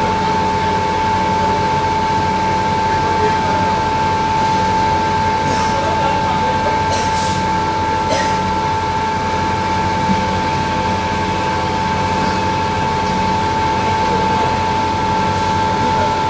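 Continuous namkeen fryer machine running: a steady mechanical hum with a constant high whine. A few brief hisses come about midway.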